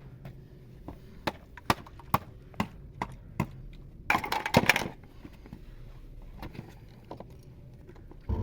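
Sharp wooden clicks and knocks, about two a second, then a short crackling rattle about four seconds in, from thin wood or wicker being worked by hand.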